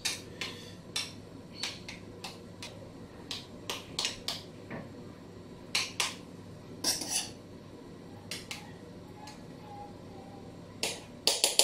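Metal spoon clinking and scraping against a small metal loaf tin in irregular taps, with a quick run of clinks near the end.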